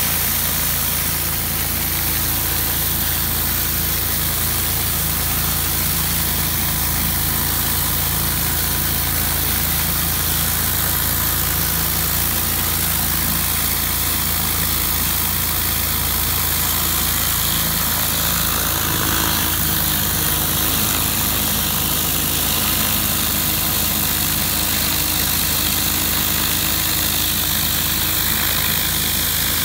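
Pressure washer engine running steadily under the hiss of high-pressure water from a Whisper Wash Classic 20-inch surface cleaner, its spinning spray bar blasting the concrete beneath the dome.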